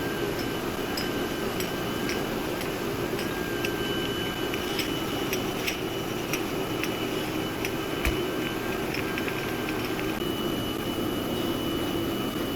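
Jam production-line machinery running steadily, with a low hum, a thin high whine and irregular light clicks; one louder knock comes about eight seconds in.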